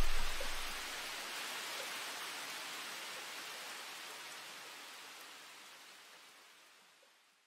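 Background music ends about a second in, leaving a steady rain-like hiss that fades gradually to silence over the next five or six seconds.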